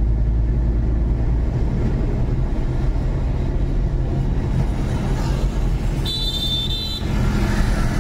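Car driving along a road, heard from inside the cabin: a steady low rumble of engine and tyre noise. About six seconds in, a short high-pitched tone sounds for about a second.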